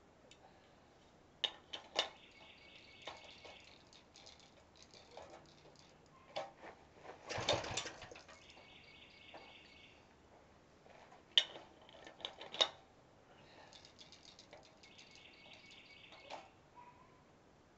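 Rebuilt Briggs & Stratton 5 hp engine being worked on by hand: scattered sharp metallic clicks and knocks, and about seven seconds in one pull on its recoil starter rope that cranks the engine briefly without it catching.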